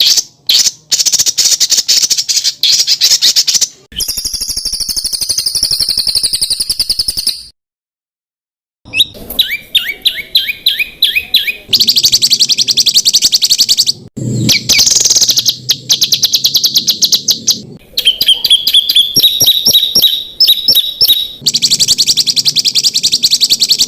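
Spliced recordings of songbirds singing harsh, rapid 'tembakan' bursts made for training caged birds. There is fast rattling chatter, a long rapid trill, a short dead gap, and then series of quick sweeping whistle notes and rattles that start and stop abruptly.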